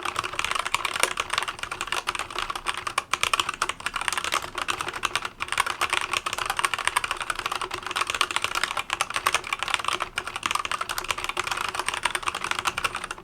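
Fast, continuous typing on a KEBOHUB EE01 mechanical keyboard fitted with red switches: a rapid clatter of keystrokes, with a brief break a little past five seconds in.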